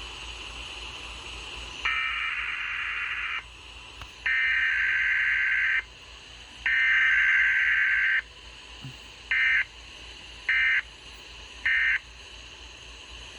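Emergency Alert System SAME digital data bursts. Three long header bursts of about a second and a half each are followed by three short end-of-message bursts, with no attention tone or voice message between them.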